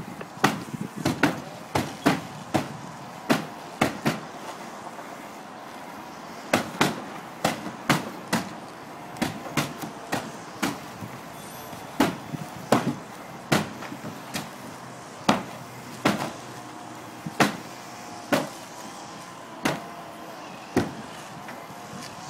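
Firefighter's axe chopping into plywood roof decking: repeated sharp wooden blows at an uneven pace of roughly one to two a second.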